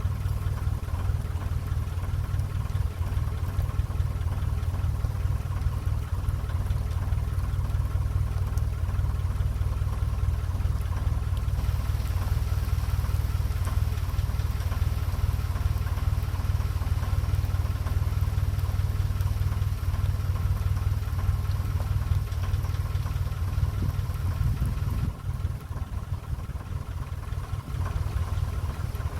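Narrowboat's inboard diesel engine running steadily at low revs while the boat cruises, a constant low rumble with a faint steady whine above it. A higher hiss joins in about twelve seconds in and drops away a few seconds before the end.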